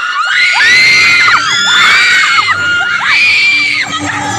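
A group of young voices screaming together in long, high-pitched shouts, about one a second, over crowd noise.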